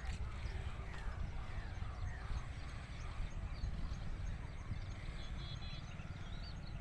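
Wind rumbling on the microphone, with small birds chirping throughout and a quick trill of repeated notes about five seconds in.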